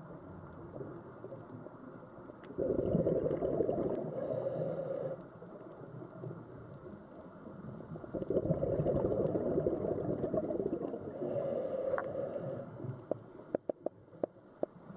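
Scuba diver breathing through a regulator, heard through an underwater camera housing: two long bubbling exhalations, each ending in a short hiss. A few sharp clicks come near the end.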